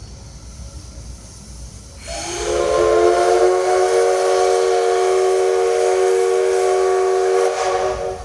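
Steam whistle of the C62 2 steam locomotive blowing one long blast of about five and a half seconds, starting about two seconds in. Several tones sound together as a chord over a rush of steam, the pitch sliding up slightly as it opens, and the blast drops away near the end.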